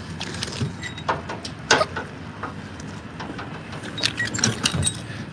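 Scattered footsteps, knocks and light metallic clinks on a metal diamond-plate boat deck and rocky bank, over the low steady running of the boat's idling motor.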